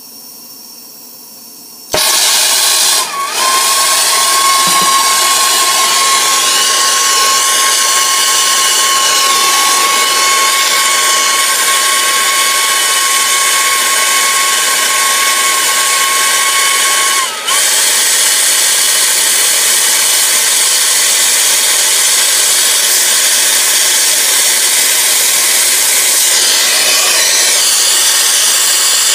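Gas brazing torch flame hissing steadily on a copper line joint, heating it for silver soldering. The flame starts suddenly about two seconds in and carries a steady high whistle through roughly the first half.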